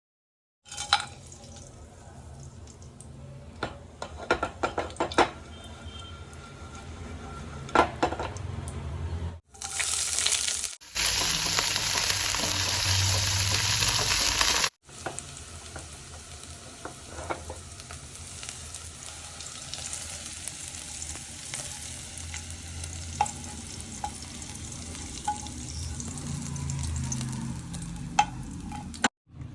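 Food frying in hot fat in a pan, with spoon clicks against the pan as it is stirred. The sizzle turns much louder for about five seconds near the middle, as when something is put into the hot fat, then settles back to a steady low sizzle. The sound cuts off abruptly a few times.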